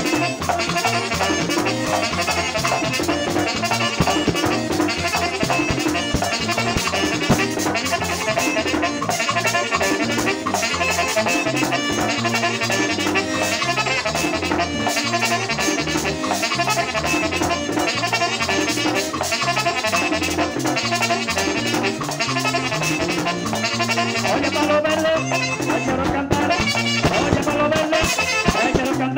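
Live merengue típico band playing an instrumental passage: accordion and saxophone over a steady stepping bass line and driving percussion.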